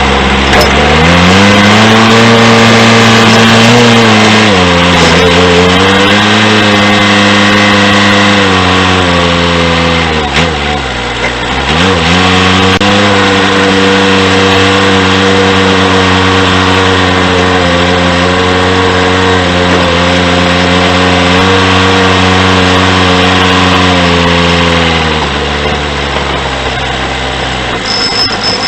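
John Deere 210C backhoe loader's four-cylinder diesel engine revving up and running at high revs. Its pitch sags briefly twice, then falls back toward idle near the end.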